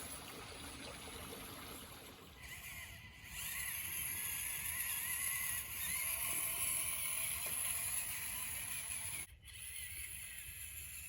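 Running water, then from about two seconds in the high whine of an Axial SCX24 micro crawler's small electric motor and gears, wavering up and down with the throttle over the water. It breaks off abruptly for a moment near the end.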